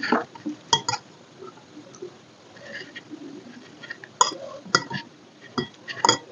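Eating sounds close to the microphone: soft chewing and mouth noises broken by sharp clicks and clinks of dishes, a pair about a second in and the loudest a little after four seconds.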